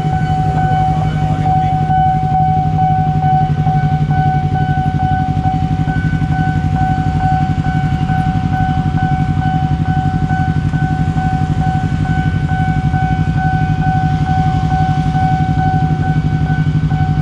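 A train passing over a level crossing: a loud, steady rumble with rapid rattling of the wheels, while the crossing's warning alarm sounds a constant, unchanging tone.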